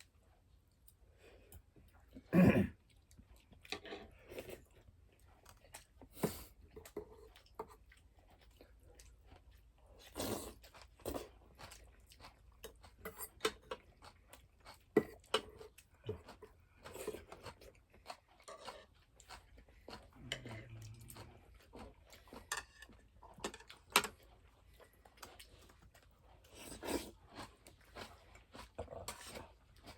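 Close-up chewing and crunching of crisp radish, a run of irregular short crunches with one louder thump about two and a half seconds in.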